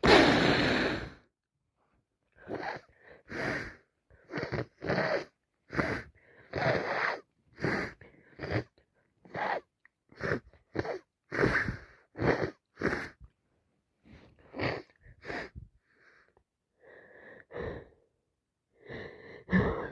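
A person with a head cold and blocked sinuses sneezes loudly at the very start. A long run of short, wheezy, gasping breaths follows, one or two a second, quieter for a while and louder again near the end.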